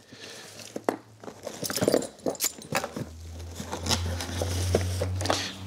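Hands rummaging through a cardboard box of gear: items clicking, knocking and rustling against each other. A low steady hum comes in about halfway through.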